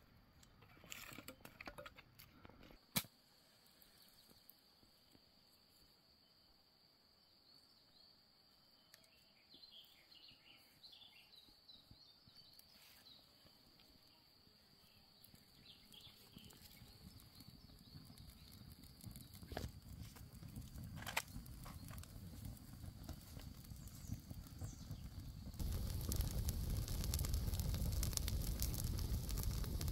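A wood campfire being built and lit: dry sticks knock as they are laid in a teepee, then the kindling catches and the fire grows louder. Near the end a loud, steady rushing and crackling of the blazing fire comes in suddenly.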